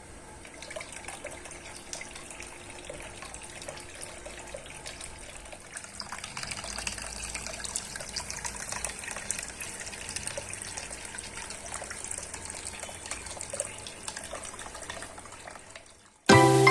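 Water splashing and trickling steadily in a small homemade tabletop fountain, getting louder about six seconds in and fading out near the end.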